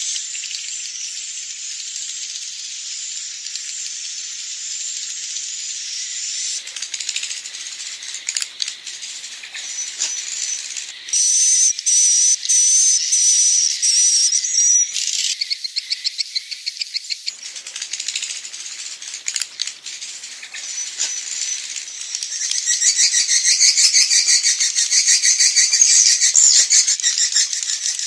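Swiftlet roosting-call lure recording: dense, high-pitched twittering and buzzing of many swiftlets, the evening 'inap' call used to draw swiftlets in to roost. It begins as an even hissing twitter, turns choppy about eleven seconds in, and becomes a fast, louder run of clicking chirps near the end.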